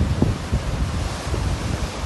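Sea waves breaking and washing on the shore, the hiss of the surf swelling about halfway through, with gusts of wind buffeting the microphone.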